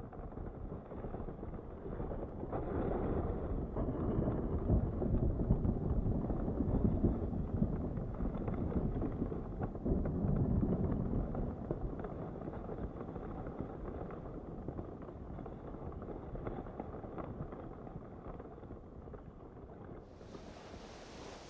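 A low, steady rumbling noise that swells over the first few seconds and then slowly fades. About a second before the end, a brighter hiss comes in.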